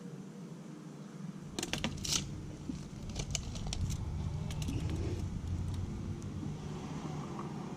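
Scattered light clicks and small metallic rattles of tools being handled, starting about a second and a half in, over a steady low hum.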